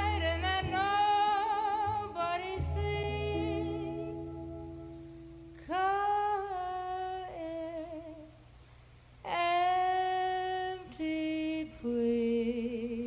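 Ballad playing: a high, likely female voice holds long wordless notes with vibrato over soft accompaniment. There are four held phrases with short breaks between them.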